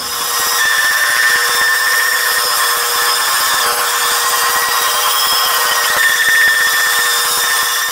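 Vertical band saw running and cutting through a thick wooden beam: a steady whine and hiss of the blade in the wood.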